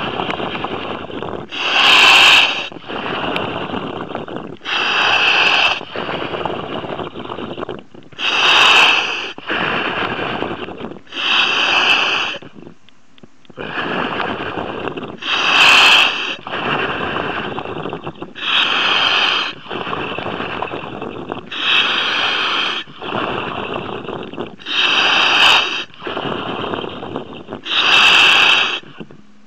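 Diver breathing through a demand regulator, heard over the diving communication line: regular hissing breaths, one about every three seconds.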